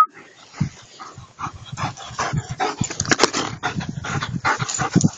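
German Shepherd dogs panting hard after a run, in quick, rough breaths that grow louder about two seconds in.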